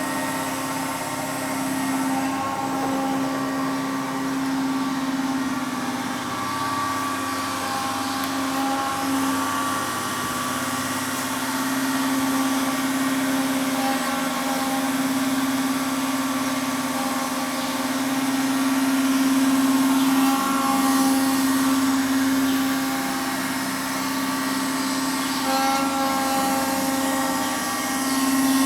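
Danobat RTM 1600 surface grinder running: a steady machine hum with a high hiss, and a few higher tones that come and go.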